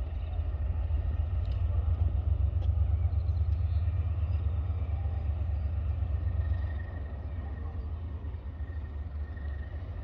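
Diesel locomotives of a train, a Class 37 and a Class 68, running with a steady low engine rumble that eases off somewhat about two-thirds of the way through. A faint high, steady tone sounds over the last few seconds.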